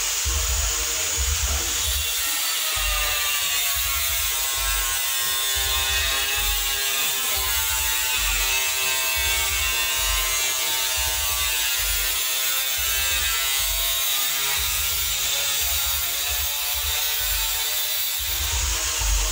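Background music with a steady bass beat and a sustained pitched tone over most of it.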